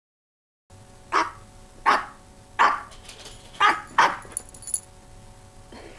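A woman's vocal imitation of a rhesus macaque bark threat: five short, harsh barks, each falling in pitch, the last two close together.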